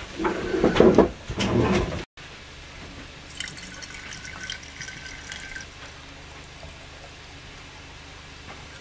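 Hot maple syrup pouring in a thin stream from an enamelware coffee pot's spout into a narrow-necked glass jug, a soft trickle with a faint ringing tone for a couple of seconds as the jug fills. A brief, louder voice comes first, before a cut.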